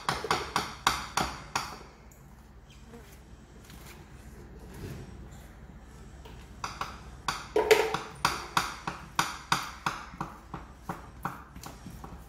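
A steel spoon clinking in quick ringing taps, about three a second, as it spreads paste over stacked colocasia leaves. The taps pause about two seconds in and start again near the seven-second mark.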